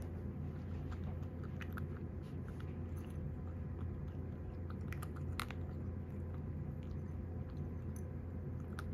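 A domestic cat eating dry kibble from a bowl: scattered crisp crunches as it chews, the loudest about five seconds in, over a steady low hum.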